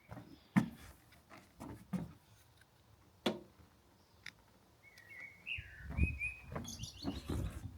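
A bird chirping a short run of quick notes about five seconds in. Scattered sharp clicks and knocks come earlier, and a low rumble runs through the last couple of seconds.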